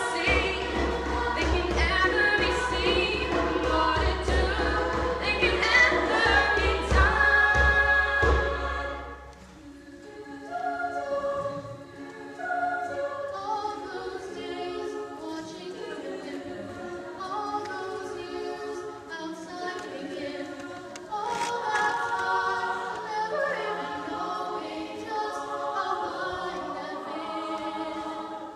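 All-female a cappella group singing in close harmony. A loud, full passage breaks off about nine seconds in, and softer held chords follow, swelling again near the end.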